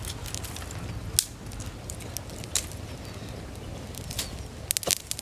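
Small wood campfire crackling, with scattered sharp pops and snaps over a low steady rumble; a loud snap about a second in and a quick run of pops near the end.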